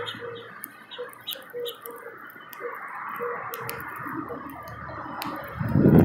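Irregular sharp clicks of a male house finch cracking and pecking seeds at a platform feeder close to the microphone, over a steady background hiss, with a louder low thump near the end.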